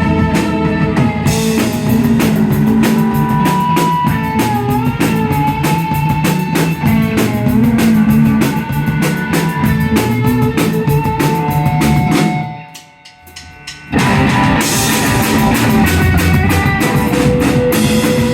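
Rock music with drum kit and guitar, dropping away briefly about two-thirds through before the band comes back in.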